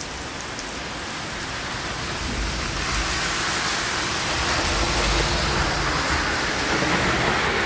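Steady rain falling, an even hiss that swells louder about three seconds in, with a low rumble underneath.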